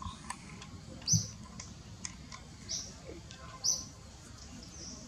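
Three short high-pitched animal chirps about a second apart, the first the loudest, with faint ticks between them.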